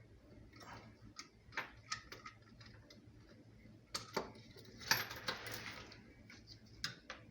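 Irregular light metallic clicks and taps of a faucet supply-hose fitting and tools being handled and tightened by hand, with a short rustle about five seconds in.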